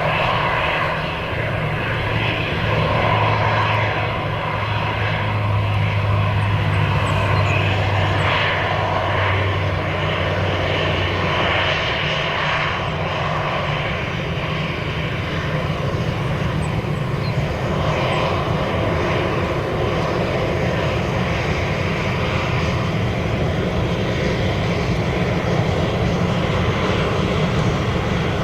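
Jet airliner engines running, a loud steady noise with a low hum that fades out about twelve seconds in.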